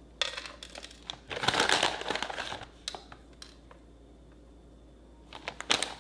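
A plastic snack pouch crinkling in bursts as it is handled and shaken to sprinkle seed topping, with a quiet stretch in the middle and more crinkling near the end.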